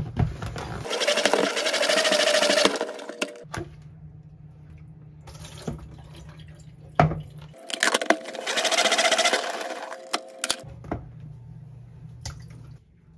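Plastic salad spinner spun twice, each spin a whirring rush of about two and a half seconds as water is flung off washed lettuce. Plastic clicks and knocks come between the spins, and near the end the spun-off water is poured into the sink.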